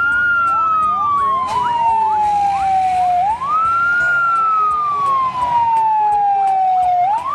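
Fire engine siren wailing: a tone that rises quickly and then falls slowly, starting over about every three and a half seconds. A second, fainter siren sweeps up quickly several times a second over it for the first three seconds.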